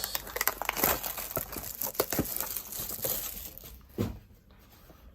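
Plastic wrapping on a trading card box being torn open and crinkled, a dense run of crackles and rips, with a single knock about four seconds in.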